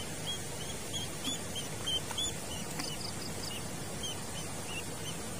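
A duckling tied on a fishing line as live bait, peeping over and over: short, high chirps about three a second, over a steady background hiss.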